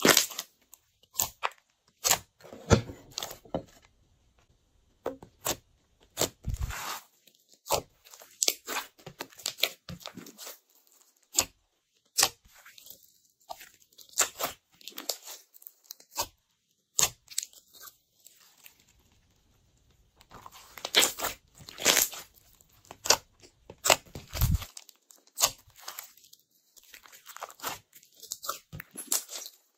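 Hands kneading and squeezing glossy slime, giving irregular sticky pops, clicks and squelches in quick clusters with short pauses between.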